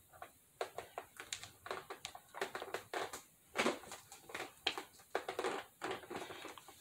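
Irregular plastic clicks and knocks as the hood of a rollabout hood dryer is handled and fitted onto the top of its stand.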